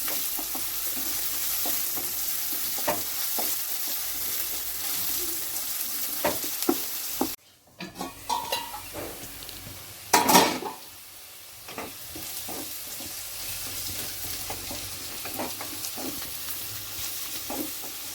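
Chopped onions sizzling as they fry in oil in a pan, with a spatula stirring and scraping in short clicks. About seven seconds in the sound drops out briefly, and a louder clatter of metal on the pan comes around ten seconds in.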